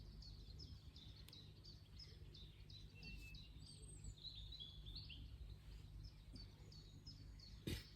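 Faint bird chirping: short, high, repeated chirps a few times a second over low background rumble, with one brief knock near the end.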